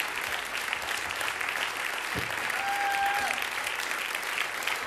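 Studio audience clapping after a song, with one short steady high tone, like a whistle, about three seconds in.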